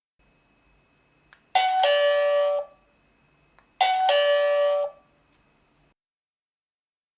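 Electronic two-note ding-dong chime from a home security alarm kit, sounding twice about two seconds apart. Each chime is a short higher note falling to a longer lower one, with a soft click just before it.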